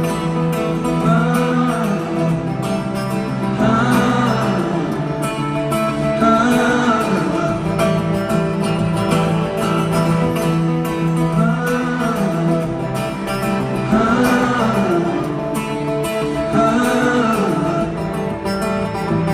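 Live music: acoustic guitar with wordless sung vocal phrases that repeat about every two and a half seconds, over sustained held tones.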